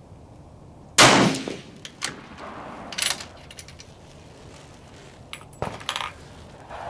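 A single rifle shot about a second in, with a short decaying echo. It is followed by a few fainter sharp metallic clicks and clacks.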